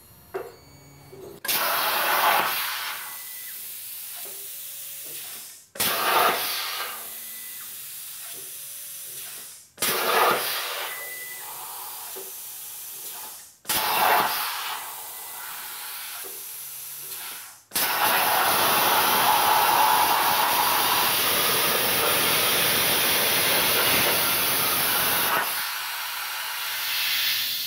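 Hypertherm Powermax 30 XP plasma cutter on a CNC table cutting painted 14 gauge mild steel: a loud steady hiss of the plasma arc and air. It breaks off and restarts abruptly several times, each start loud and then easing, before a longer, louder stretch that drops back near the end.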